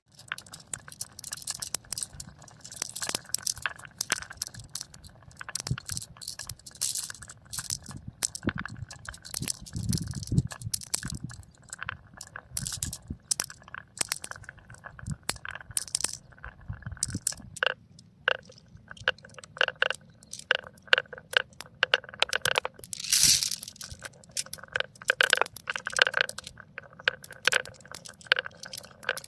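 Glass marbles rolling and clacking down toy marble-run tracks: a dense, irregular run of sharp clicks and knocks, with a low rolling rumble in places.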